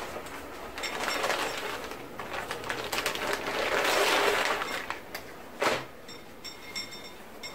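Clear plastic bag crinkling and rustling as folded jeans are handled and slid out of it, loudest about four seconds in, followed by a single sharp knock.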